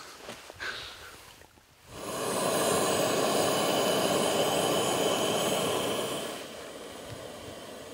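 Portable propane grill and stove burners running with a steady hiss. It starts about two seconds in and is loud for about four seconds, then goes on more quietly near the end.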